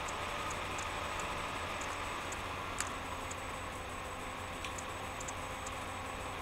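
Steady room noise with a low hum, under faint, irregularly spaced high ticks and one sharper click about three seconds in.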